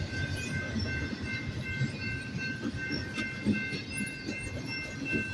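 Freight train cars rolling past on the rails: a steady low rumble with irregular wheel clacks and knocks, and steady high-pitched ringing tones over it.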